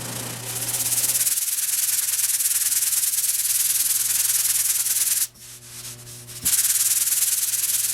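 Sandpaper rubbed by hand over the car's bare sheet-metal bodywork, a dense scratchy hiss of quick strokes; it stops for about a second just after the halfway point, then starts again.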